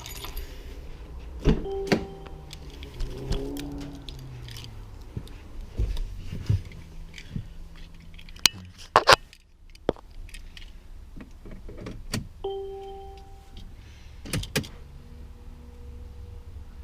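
Keys jangling and a series of clicks and knocks from handling a car's door and controls, with a short two-tone electronic chime about a second and a half in and again about twelve seconds in, over a low steady rumble.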